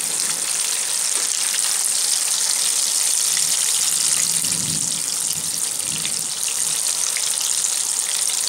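Hot oil sizzling steadily around battered susiyam balls deep-frying in a pan, with fine crackling throughout.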